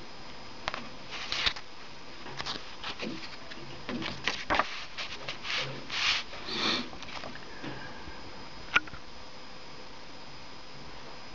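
Paper CD booklet being handled and its pages turned: a run of short paper rustles and brushing sounds over about seven seconds, then a single sharp click.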